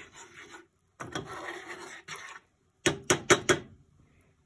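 A spoon scraping and stirring a flour-and-oil roux in a small saucepan, then four or five quick, sharp taps about three seconds in.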